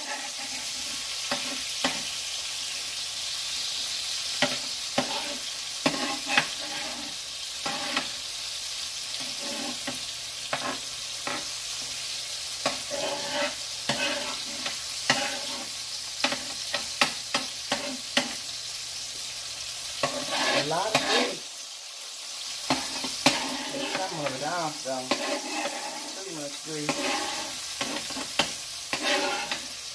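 Beef burger patties sizzling as they fry on a stovetop griddle pan, a steady hiss broken by frequent short clicks and scrapes against the pan as they are handled.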